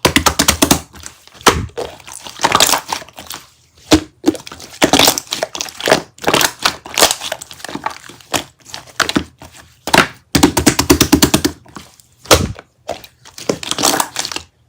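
Runs of rapid, sharp clicks and crackling taps, some in quick trains of many clicks, with brief pauses between the runs.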